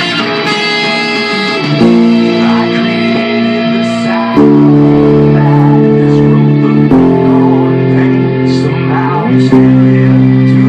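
Guitar playing loud held chords that change about every two to three seconds.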